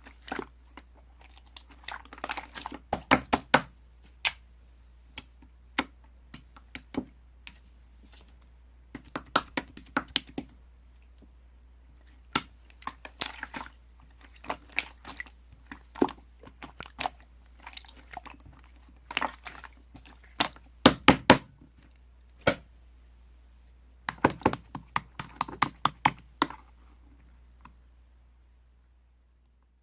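Slime being pressed and worked by hand, giving groups of sharp clicking and popping sounds every second or two, with short pauses between; the clicking stops near the end.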